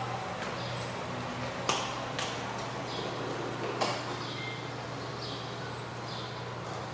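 Steady low hum and hiss of an empty room, with two sharp knocks about two seconds apart and faint short high chirps recurring about once a second.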